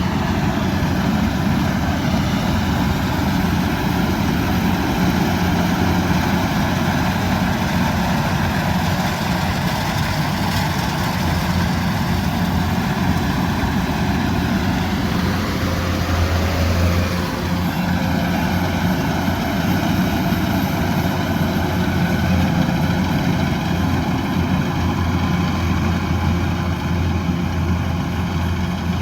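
Diesel engine of a Kubota DC-108X rice combine harvester running steadily with a low hum, its tone shifting briefly about halfway through.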